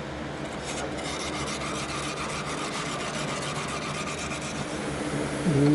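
Continuous rasping scrape of a hand tool worked over rusty sheet metal, getting rougher about a second in, over a steady low hum.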